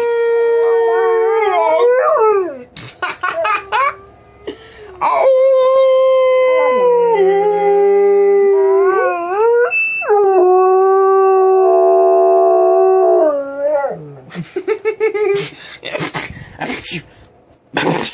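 Dog howling: long drawn-out howls, each held on one pitch and then sliding up or down, with short yips and whimpers between them and near the end.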